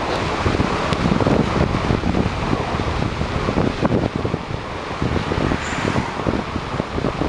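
Road and wind noise from a moving vehicle: a steady rush with irregular low gusts of wind buffeting the microphone.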